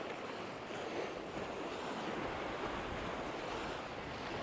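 Sea surf washing against a rocky shore, with wind on the microphone.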